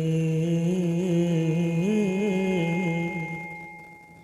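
A man singing a naat, drawing out one long note that wavers through small ornamental turns about two seconds in and fades out near the end.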